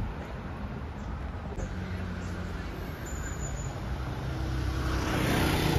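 A car driving slowly along a narrow street, its low engine hum steady at first and growing louder near the end as the car draws close.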